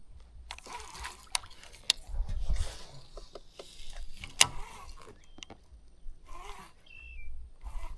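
Fishing rod and reel being cast from a kayak: a few sharp clicks, the loudest about halfway through, and short bursts of hiss. A bird chirps briefly near the end.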